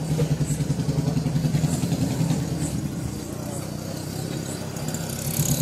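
A motor vehicle's engine running steadily close by, with a rapid, even pulse.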